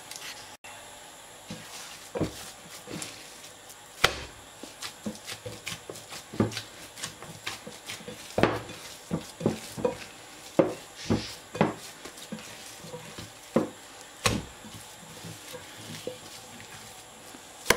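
Hands kneading a minced-beef köfte mixture in a glass bowl: irregular short slaps and squishes, a few sharper than the rest.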